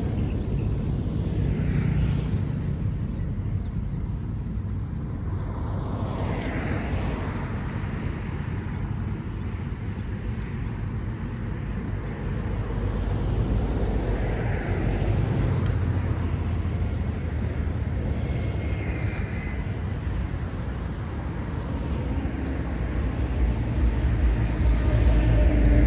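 Road traffic: a steady low rumble with several vehicles passing one after another, the loudest going by near the end.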